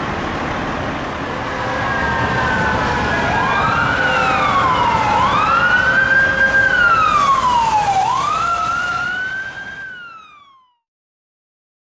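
Street traffic noise, then an electronic emergency-vehicle siren sounding a slow wail, its pitch rising and falling every two to three seconds. It fades out about ten seconds in.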